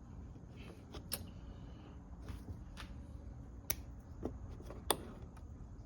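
Scattered sharp clicks and light taps of plastic car tail-light parts being handled and pushed into place, three sharper ones about a second in, near four seconds and near five seconds.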